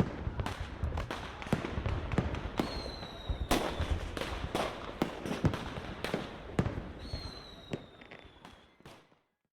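A dense series of sharp bangs and pops, with a high whistle that falls slightly in pitch about three seconds in and again about seven seconds in; the bangs thin out and fade toward the end.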